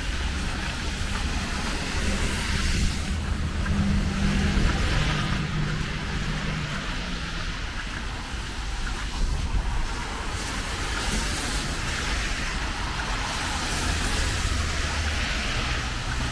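Road traffic on a rain-soaked road: cars passing with tyres hissing on the wet surface, the hiss swelling and fading several times over a steady low rumble.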